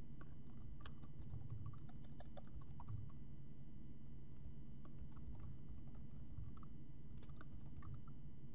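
Typing on a computer keyboard: light key clicks in two spells, the first in the opening seconds and the second from about five seconds in, over a steady low hum.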